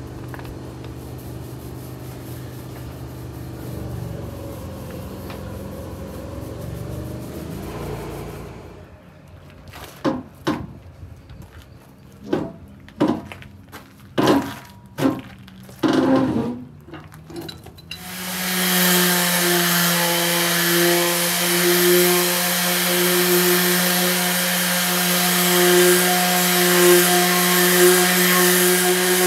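Random orbital sander with a vacuum hose attached, running steadily against a fibreglass hull to take off old bottom paint; it starts a little over halfway through and is the loudest sound. Before it come about ten sharp knocks, and at the start a low steady hum.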